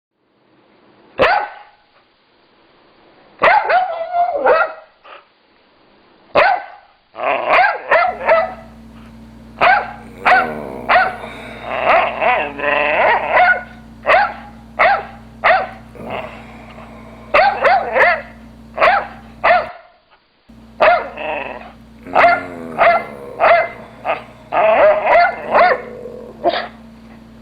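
Boxer dog barking over and over in short runs of several barks, with a longer drawn-out call near the middle. A low steady hum comes in after the first few barks.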